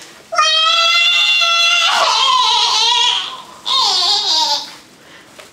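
A young person's long, high-pitched wail of an acted, mock-dramatic death. It is held on one note for about a second and a half, then wavers and breaks up, and ends in a shrill cry near the four-second mark.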